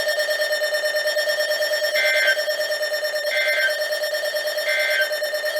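A steady, pulsing electronic alarm tone with three short warbling data bursts over it, each about a second and a third apart. The bursts have the form of a weather radio's SAME digital code, three short bursts of the kind that close an alert message.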